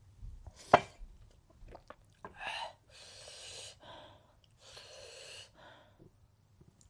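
Eating sounds: one sharp crunchy click about three-quarters of a second in, then three long hissing breaths drawn through the mouth, the air-sucking of someone cooling their mouth after hot green chillies.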